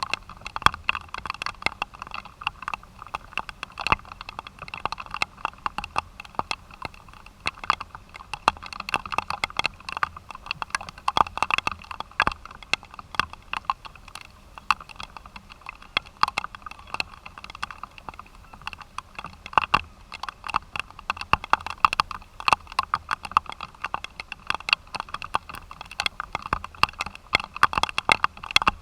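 Rain pattering on a nearby hard surface: a steady run of irregular sharp drop taps over a soft hiss.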